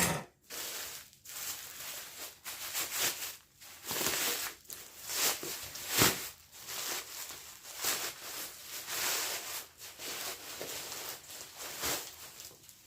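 Packaging being torn and unwrapped by hand: continuous crinkling and rustling with sharp rips and crackles.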